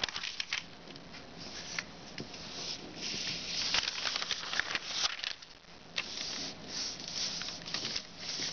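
A sheet of kami origami paper rustling and crackling as it is lifted, folded over and pressed flat by hand, in uneven swishes with many small crackles.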